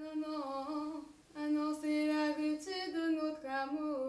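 A woman singing alone in long, held notes, with a short break about a second in.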